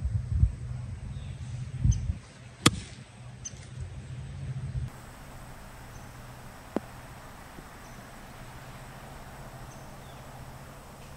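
A single sharp click of a golf club striking the ball on a short pitch shot, about two and a half seconds in, over a low rumble that stops about halfway through.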